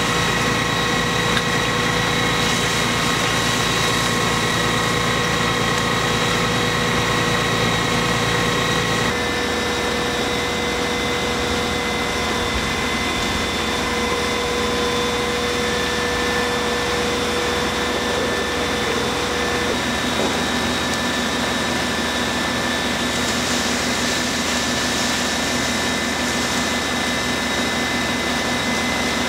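Fire engine engines and pumps running steadily at a fire scene, a constant drone with held whining tones. The sound changes abruptly about a third of the way in and again about two thirds in.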